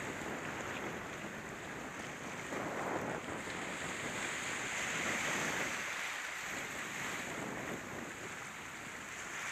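Ocean surf washing and breaking close in at the shoreline: a steady rush of water that swells a little around the middle.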